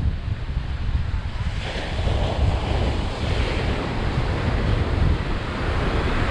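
Ocean surf breaking and washing up the beach, with a wave's hiss swelling about a second and a half in. Wind buffets the microphone throughout as a steady low rumble.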